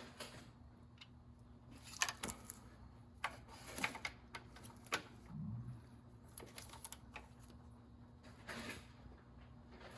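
Scattered, irregular light clicks and taps of hand tools and small metal parts being handled during engine reassembly, over a faint steady hum.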